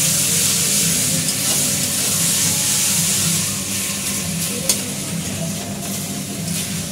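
Onion-tomato masala with ginger-garlic paste sizzling in hot mustard oil in a kadai as it is stirred, a sharp clink of the spatula about four and a half seconds in.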